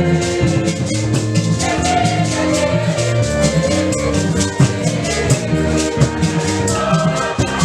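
Music with a fast, even shaker-rattle beat over drums and sustained pitched notes, with some singing.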